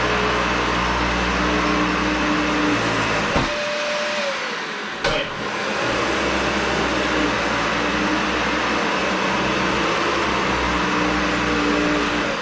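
Dyson Ball Animal (UP13) upright vacuum cleaner running steadily with a hissing motor drone. A knock comes about three and a half seconds in and another about five seconds in; between them the low part of the drone drops away and a tone slides downward, before the steady running picks up again.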